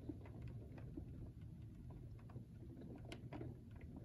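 Faint indoor room tone: a low steady hum with scattered soft, irregular ticks.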